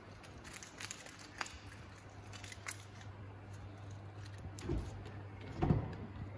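Handling noise from a handheld camera moving around: small clicks and rustles over a steady low hum, with two soft low thumps about a second apart near the end.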